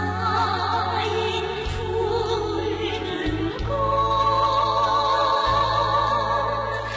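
A female vocal quartet singing with wide vibrato over instrumental accompaniment; a new sung phrase begins about halfway through.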